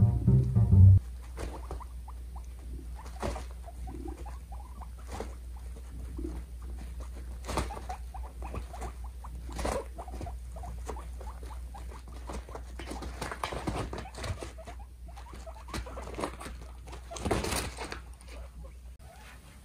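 Two guinea pigs fighting for dominance: scattered sharp clicks of teeth chattering and scuffling, with a louder, noisier outburst near the end. Background music cuts off about a second in.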